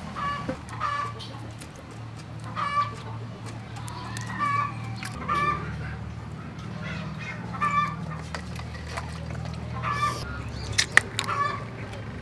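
Chickens clucking, short calls every second or two, over a steady low hum, with a few sharp clicks about eleven seconds in.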